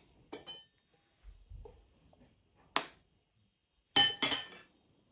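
Eggs being knocked against the rim of a bowl to crack them: about four sharp clinks with a short ring. One comes near the start, one in the middle, and two close together near the end.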